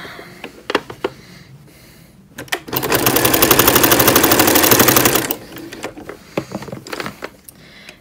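Janome domestic sewing machine, fitted with a walking foot, stitching a short seam: it starts about two and a half seconds in, runs at a fast, even rate of needle strokes for under three seconds, then stops. A few light clicks come before and after it.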